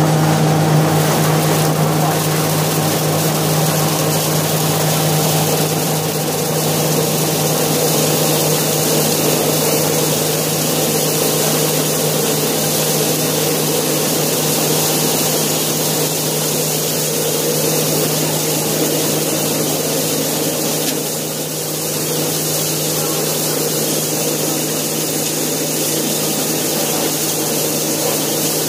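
Yanmar RHS40DL rice milling machine running steadily: a constant low hum over a dense hiss, with no change in speed.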